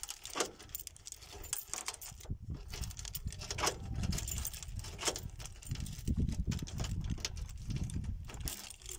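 A bunch of keys jangling as a key is worked in the cylinder of a steel gate door's mortise lock, with sharp clicks every second or so.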